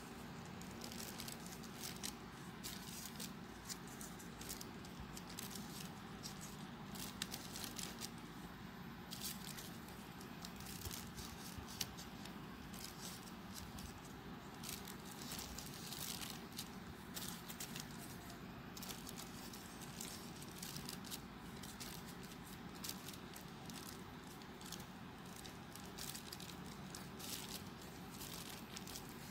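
Folded paper units of a 3D origami model rustling and crinkling as fingers push and adjust them, in irregular short scratchy clicks, over a steady low hum.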